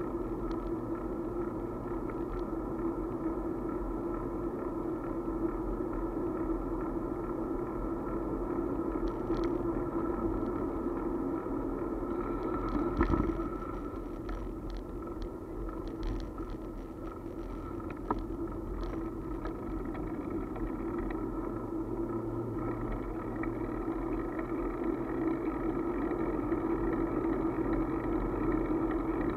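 Steady rumble and wind noise of a moving two-wheeler heard through a camera mounted on it, with a short bump about halfway through and a scatter of light rattles.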